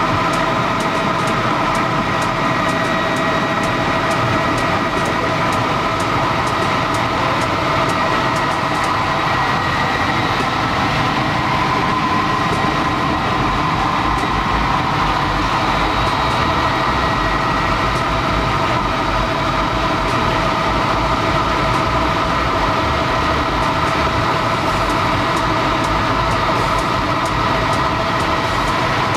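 Helicopter in steady cruise, heard from inside the cabin: a constant engine and rotor din with several unchanging high whining tones on top.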